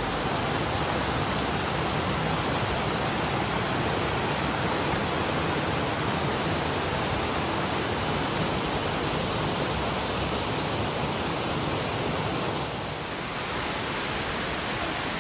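Waterfall: a steady, unbroken rush of falling water. Near the end it dips slightly in level and changes a little in tone.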